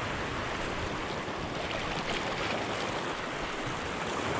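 Steady wash of sea waves surging against the rocky shoreline.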